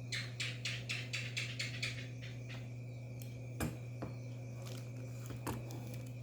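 Small hard objects being handled: a quick run of about eight light clicks in the first two seconds, then a few single sharp clicks, over a steady low electrical hum.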